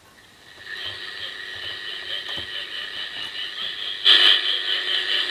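Speaker output of a simple single-coil shortwave receiver (no superheterodyne) picking up very weak shortwave stations: hiss with steady high tones. It comes up about half a second in and gets louder about four seconds in.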